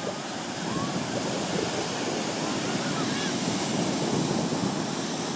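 Ocean surf washing onto a beach, a steady rush that swells for a few seconds in the middle.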